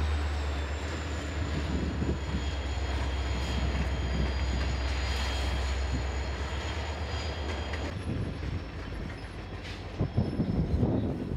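Freight train rolling past: the low, steady drone of CSX diesel locomotive engines, with faint high-pitched wheel squeal from the passing tank cars. About eight seconds in the engine drone drops away, leaving rolling wheel noise and a few short knocks.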